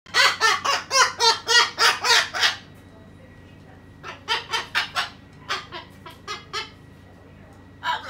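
Rapid laughter, 'ha-ha-ha', in two runs of about three syllables a second: a loud run of about eight, then after a short pause a second, softer and more broken run.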